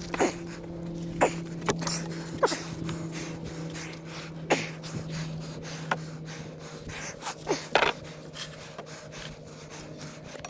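Hand digging in the bottom of a post hole to deepen it: irregular scrapes and knocks of a digging tool in the soil, about a dozen of them, over a steady low hum.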